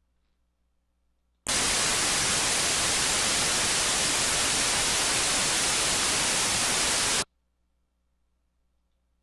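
Computer-generated white-type noise played as a tinnitus masking sound: a steady, even hiss, strongest in the upper range. It switches on abruptly about a second and a half in, runs unchanged for about six seconds, then cuts off abruptly.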